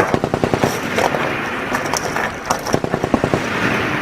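M240B 7.62 mm machine gun firing short bursts, about ten rounds a second: one burst at the start and another about two and a half seconds in.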